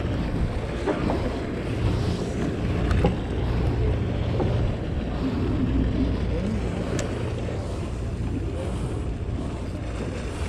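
Wind buffeting the microphone and sea water washing against a fishing boat, over a low steady rumble, with a few faint knocks.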